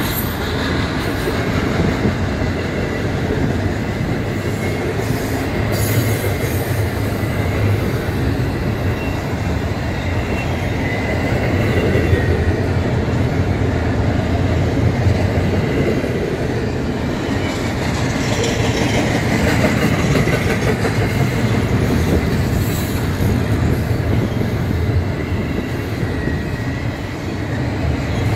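Intermodal freight train's cars rolling past at speed: a steady rumble and clatter of steel wheels on the rails.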